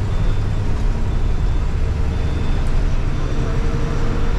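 A bus's engine and road noise heard from inside the driver's cabin while it is under way: a steady low rumble with a faint engine hum.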